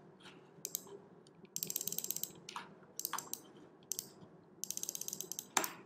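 Computer mouse clicking: two quick runs of rapid ratcheting clicks, each lasting well under a second, with a few single clicks between them.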